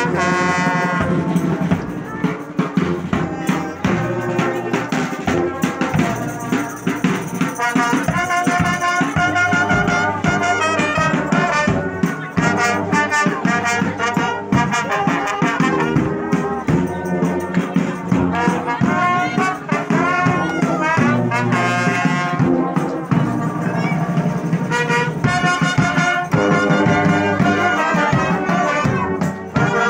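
A marching brass band playing a tune, led by tubas and other brass horns, loud and continuous.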